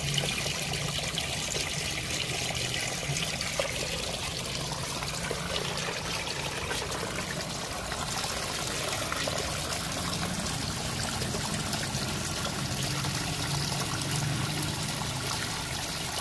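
Water draining from a water tank's opened drain pipe, pouring in a steady stream and splashing onto a wet concrete floor.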